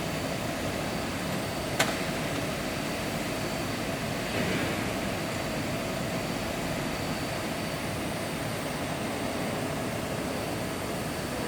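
Steady machinery hum with a faint steady whine. There is one sharp click about two seconds in and a brief rush of noise about four seconds in.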